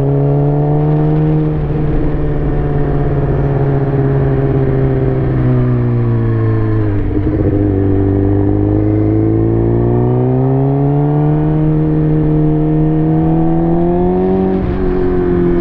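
Motorcycle inline-four engine of a 2007 Suzuki GSX-R breathing through an M4 exhaust, running under way with a steady drone. Its pitch sinks slowly for about seven seconds, breaks briefly, then climbs gradually as the bike picks up speed again.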